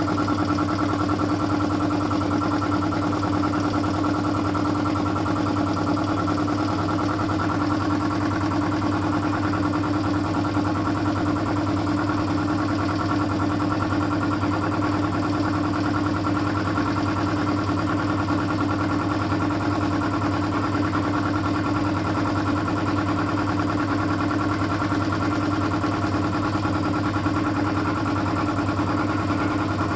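A 2 hp air compressor running steadily with a constant, even hum.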